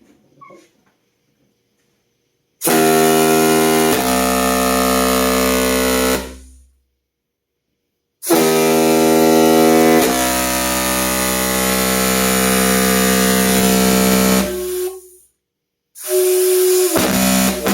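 Homemade foghorn of PVC pipe with a bicycle inner-tube diaphragm, blown in really loud, steady low blasts: one of about four seconds, a longer one of about seven seconds, then a third starting near the end after a brief sputter.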